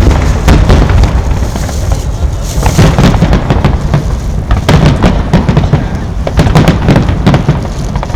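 Fireworks finale: aerial shells bursting in a dense, near-continuous barrage of overlapping deep booms and sharp reports, very loud.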